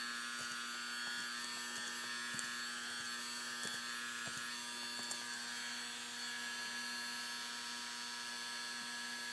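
Opened hard disk drive spinning steadily with an electric hum and whine, with a few faint, irregular clicks. The drive, which had been locking up, is running on its own.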